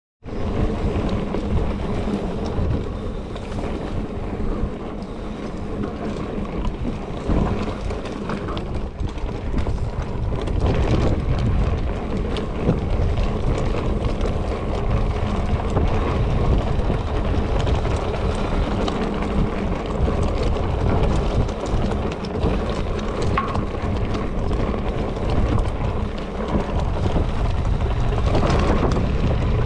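Wind rushing over the microphone on a riding mountain bike, with the noise of its tyres rolling on a dirt and gravel trail and occasional knocks and rattles from the bike over bumps.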